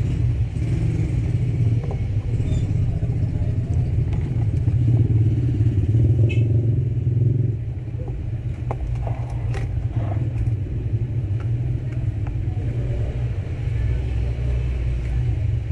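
A steady low engine rumble, louder for the first seven and a half seconds and then easing, with a few light clicks as a phone's plastic back cover is handled and pressed onto its frame.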